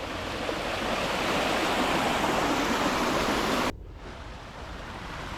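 Creek water rushing over rocks in small cascades, a steady rush that grows louder, then drops suddenly to a quieter stretch of running water about two-thirds of the way through.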